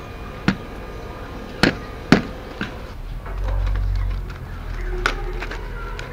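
Pliers snipping through bamboo strips: four sharp clicks in the first two and a half seconds. Then a low rumble and one more click as the woven bamboo basket is handled.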